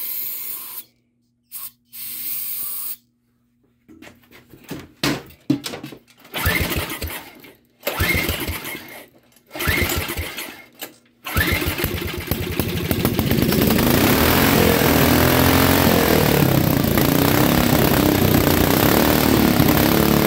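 Small go-kart engine being pull-started: several short cranking pulls on the recoil starter, then it catches about eleven seconds in and keeps running steadily.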